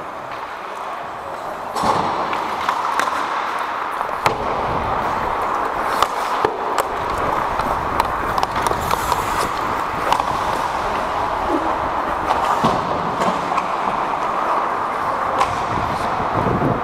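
Ice hockey play on an arena rink: a steady scraping hiss of skates on ice, a little louder about two seconds in, with scattered sharp clacks of sticks and puck.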